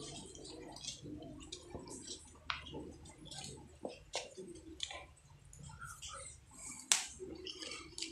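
Faint, scattered clicks and small taps of hands working copper winding wire into a ceiling fan's stator coils, with one sharper click about seven seconds in.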